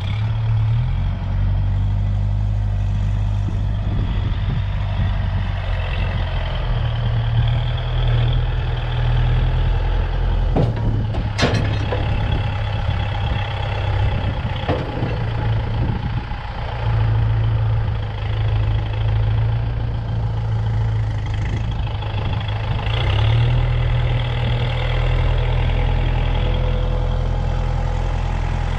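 Kubota M6040 tractor's diesel engine running under load as its front loader pushes a heavy implement, the engine note stepping up and down. A few sharp metal clanks come near the middle.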